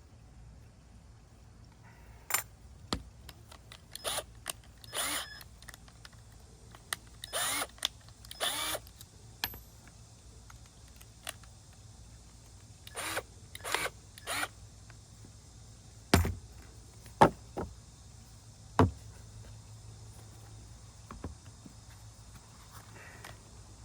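Screw gun run in a series of short bursts, likely driving small wood screws into birch panel strips, followed by three sharp knocks.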